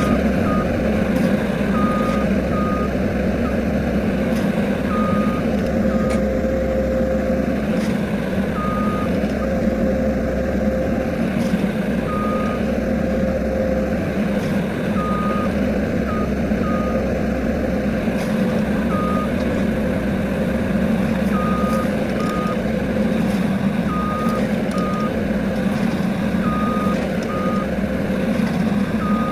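Skid steer loader's engine running steadily while working, with its backup alarm giving short high beeps, often in pairs, on and off as the machine reverses.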